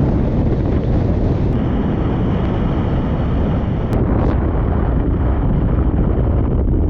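Wind buffeting the microphone in a loud, steady rumble, as it does on a camera held in a moving car. A faint steady whine joins above it about a second and a half in.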